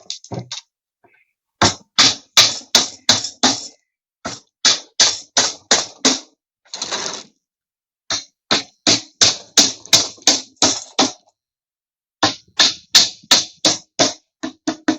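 Hammer driving nails into plywood as a breeding-cage box is put together: quick runs of sharp blows, about three a second, in four runs with short pauses between them.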